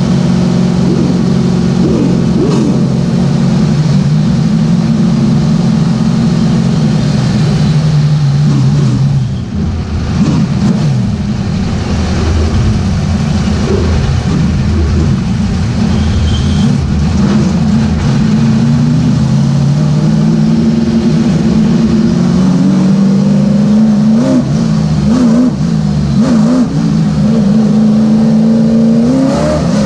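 Late model race car's V8 engine running hard at racing speed, heard from the right front corner of the car: its pitch sinks, drops with a brief lift about nine seconds in, then climbs again under throttle, rising most near the end.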